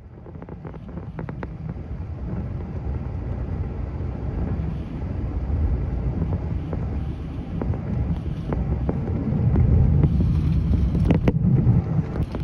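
Cabin noise inside an Airbus A380 on final approach with flaps out: a steady low rumble of airflow and engines that fades in and grows louder, with a few sharp clicks and rattles, most of them near the end.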